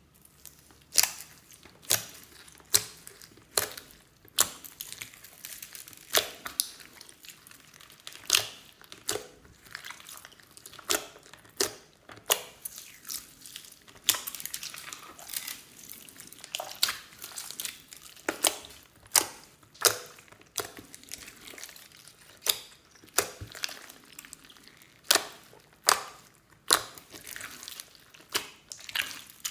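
Hands kneading and squishing slime mixed with foam beads and glitter: a steady wet crackle broken by sharp pops and clicks, roughly one a second, as air pockets in the slime burst.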